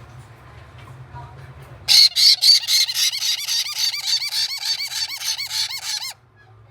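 Caique chick's rapid, rhythmic begging calls, about five high-pitched squeaks a second, starting about two seconds in and stopping suddenly after about four seconds: the sound of a chick being fed by an adult caique.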